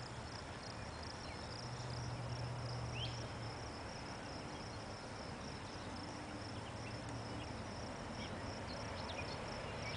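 Insects trilling steadily at a high pitch over a faint low hum, with a few brief faint chirps.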